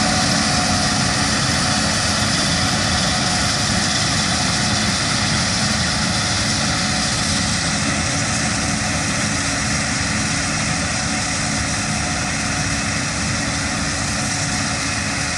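Gleaner S77 combine harvester running steadily while cutting soybeans: a dense, even machine drone with a thin constant whine, easing off slightly near the end.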